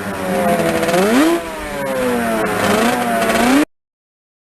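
Engine revving: its pitch climbs sharply about a second in, sinks slowly, climbs again, then cuts off abruptly.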